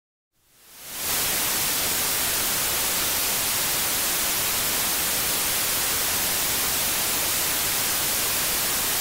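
White noise played back as a test signal, with its sound power spread evenly across frequencies. It is an even hiss that is strongest in the highs, fading in over about the first second and then holding steady.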